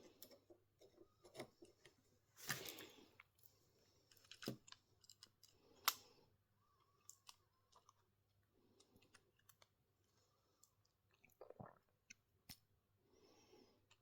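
Scattered faint clicks and taps of small smartphone parts and repair tools being handled, with a short scraping rustle about two and a half seconds in and one sharper click near six seconds.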